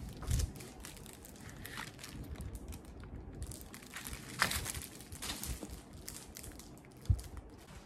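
Clear plastic wrap crinkling and rustling as a plastic-wrapped framed board is handled and the wrap peeled back, with a few sharper crackles. A brief dull knock near the end.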